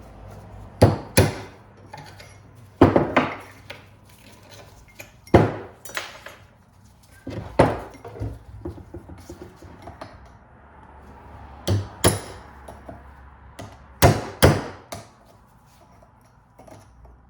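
Hammer driving a chisel against the metal clips of a driveshaft boot to release them: about a dozen sharp metallic blows, mostly in close pairs, with pauses between.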